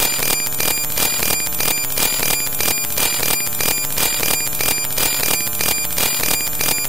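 Loud, harsh electronic noise pulsing evenly about four times a second, with a few steady high tones running through it.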